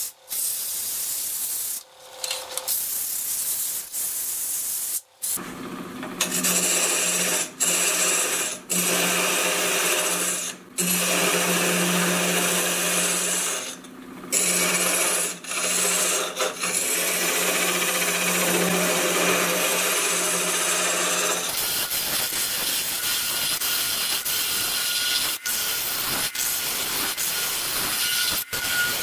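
Turning chisel cutting into a spinning wooden spindle on a wood lathe: a steady scraping hiss, broken several times by brief gaps where the tool comes off the wood.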